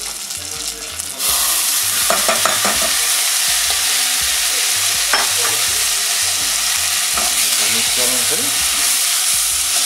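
Soaked red lentils hitting hot ghee in a steel saucepan: a loud sizzle starts suddenly about a second in and keeps going steadily as the water in the wet lentils fries off. The lentils are stirred with a spatula, which gives a few clicks against the pan.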